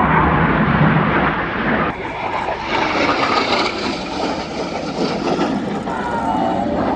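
Red Arrows BAE Hawk T1 jets flying past in formation. The jet noise is loudest around the first second, then settles to a steady roar, with a falling whine near the end.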